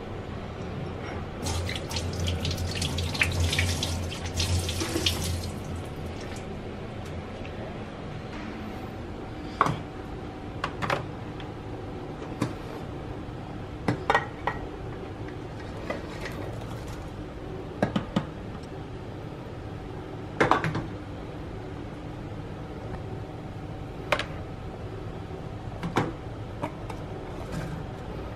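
Kitchen tap running for a few seconds, then a series of separate sharp clinks and knocks of kitchenware as chopped vegetables are tipped from a metal bowl into a rice cooker's inner pot.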